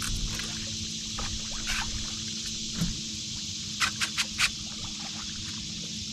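A boat's motor running with a steady hum under an even wind-and-water hiss. Four quick sharp clicks come a little past halfway.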